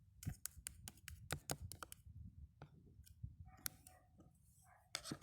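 A quick run of light clicks and taps over the first two seconds, then a few scattered ones, and a louder click near the end.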